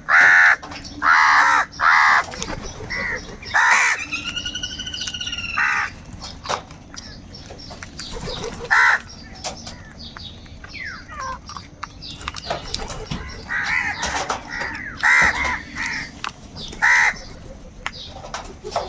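Crows cawing: a quick run of harsh caws in the first couple of seconds, a long drawn-out call from about four to six seconds in, then scattered single caws further on.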